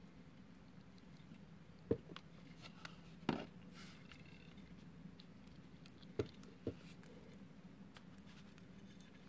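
A faint steady low hum with four short knocks or clicks, about two seconds in, a little after three seconds, and a close pair near six and a half seconds, plus a few fainter ticks.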